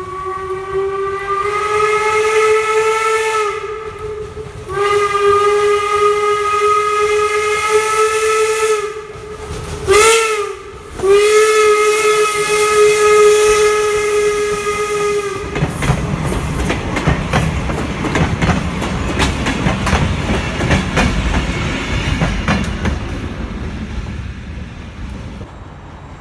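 Steam whistle of NCRR locomotive #17 "York" sounding the grade-crossing signal, long, long, short, long, on one steady note. Then the locomotive and its wooden coaches pass close by, wheels clattering and clicking over the rail joints, fading away near the end.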